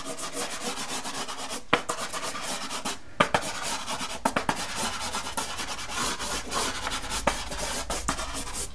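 Soft pastel stick rubbed sideways back and forth across pastel paper in quick scratchy strokes, building up a layer of colour, with a few sharper clicks as the stick meets the paper.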